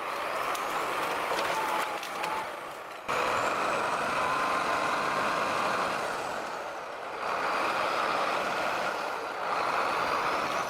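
A heavy vehicle's engine running with a steady noisy drone. The sound breaks off abruptly and picks up again about three seconds in.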